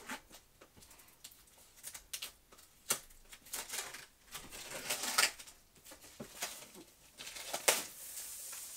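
Clear plastic shrink wrap crinkling and crackling as it is torn and peeled off a cardboard box, in irregular bursts.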